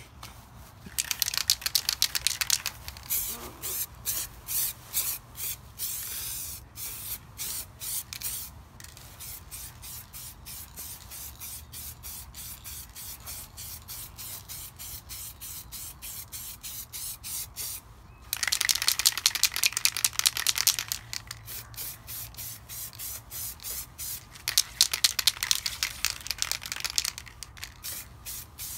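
Aerosol spray paint can hissing in repeated bursts of one to three seconds, with four loudest passes: about a second in, around six seconds, about eighteen seconds in and near the end. The paint is being sprayed onto a plastic car rear wing.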